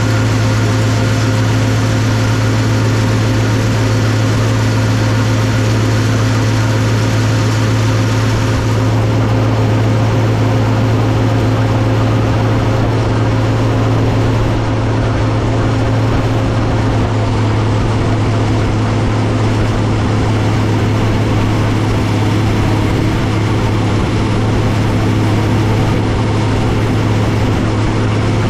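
Allis-Chalmers 7095 tractor's diesel engine running steadily under load while chopping hay, heard close to its upright exhaust stack as a constant deep hum. A high hiss over it fades about a third of the way in.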